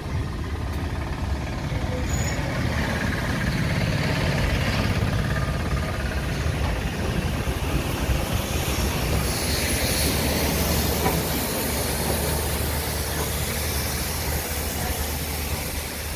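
Heritage steam train moving slowly along the platform: a steady rumble of carriage and wagon wheels on the rails. From about halfway through, a hiss of steam from steam locomotive 3526 rises over the rumble.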